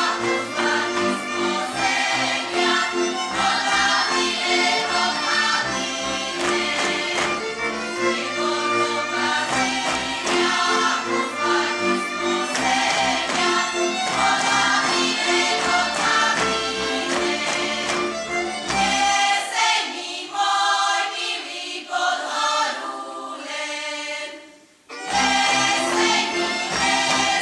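Slovak folk song sung by a group of voices over a folk string band. About two-thirds of the way through the band drops out and the voices sing on alone, then after a brief pause near the end the band comes back in.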